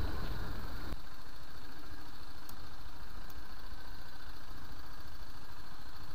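Single-cylinder engine of a BMW G 310 GS motorcycle running steadily as it rides a dirt trail. Its low rumble drops back a little about a second in.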